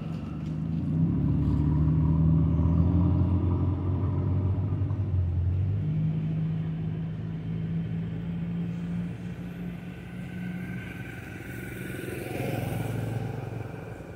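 Motor vehicles passing on a road: a low engine hum swells to a peak about two seconds in and slowly fades, and another vehicle passes near the end.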